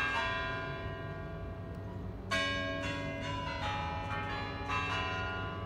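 Bells of the Spasskaya Tower clock (the Kremlin chimes) ringing a run of struck notes of different pitches. Each note rings on into the next, and the loudest strike comes a little over two seconds in.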